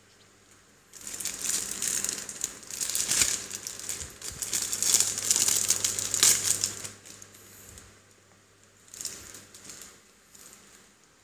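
Clear plastic wrapping around a Play-Doh tub crinkling as hands handle and pull at it, busily for about six seconds from about a second in, then a few shorter crinkles near the end.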